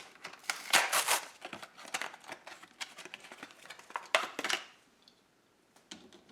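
Plastic blister packaging of a diecast toy car being handled and torn open, with crinkling and sharp clicks. There are two louder bursts, about a second in and about four seconds in, and the sound stops a little before five seconds.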